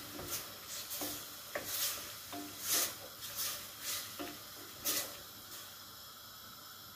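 Bacon, chouriço, onion, garlic and peppers sizzling as they fry in a stainless steel pot, stirred with short scraping strokes about once or twice a second; the stirring stops about five seconds in and only the quieter sizzle goes on.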